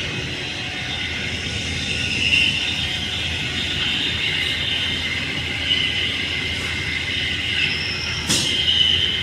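Corn puff snack extruder line running: a steady mechanical rumble with a high hiss over it.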